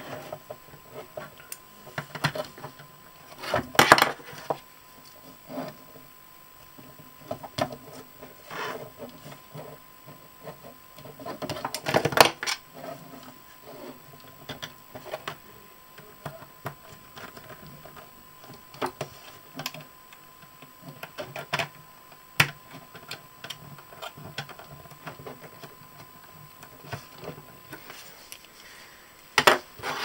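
Handling noise from wiring a lamp cable onto a small circuit board: scattered clicks, taps and rustles of wire and board, with louder bursts of scraping about four seconds and twelve seconds in.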